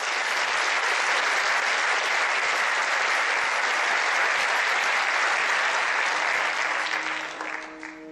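Theatre audience applauding steadily. The applause dies away near the end as the orchestra comes back in softly.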